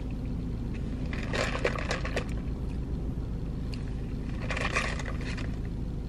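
Steady low rumble of a car heard inside the cabin, with two brief bursts of clinking and scraping, about a second in and again near five seconds: ice rattling in a plastic cup of iced coffee as it is sipped.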